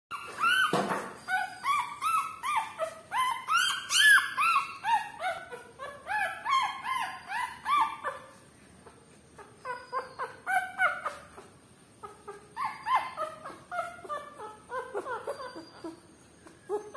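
Young Rottweiler puppies whining and squealing: short, high cries that rise and fall in pitch, coming several a second at first, then fewer and quieter after about eight seconds.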